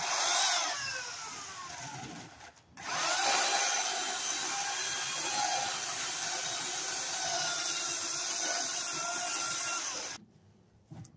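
Corded electric pole chainsaw cutting into a tree limb. The motor pitch sags as the chain bites, then the saw cuts out for a moment about two and a half seconds in. It starts again with a rising whine and runs steadily for about seven seconds before stopping.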